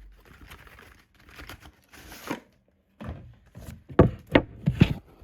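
Wooden microphone box being handled: a faint rustle, then a string of sharp clicks and knocks from about three seconds in, the loudest near four seconds.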